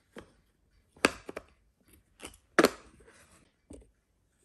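Wooden peg-puzzle pieces knocking against a wooden puzzle board as they are handled and set into their slots: several sharp wooden clacks, the loudest about a second in and again about two and a half seconds in.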